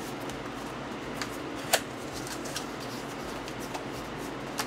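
Small cardboard box being opened by hand: a few scattered light clicks and scrapes of the cardboard flaps, the sharpest a little under two seconds in, over a steady low room hum.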